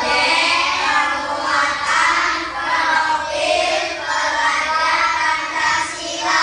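A class of primary-school children singing together in unison, the group voices running on without a break.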